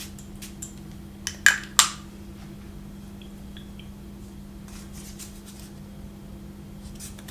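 Two quick spritzes of a perfume atomizer about a second and a half in, just after a small click, followed by a few faint handling clicks. A steady low hum runs underneath.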